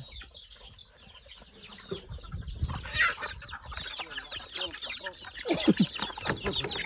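Flock of chickens clucking: many short, overlapping calls that grow busier and louder from about two seconds in.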